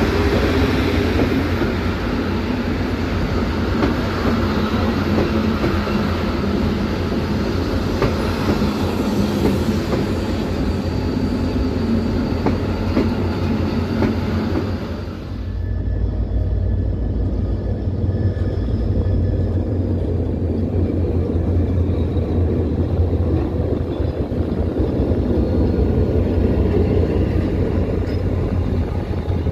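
Passenger train cars rolling past close by, heard from an open coach doorway as a loud, dense rumble and rattle. About halfway through it changes abruptly to a duller, steadier train sound with a strong low engine hum from a diesel-electric locomotive.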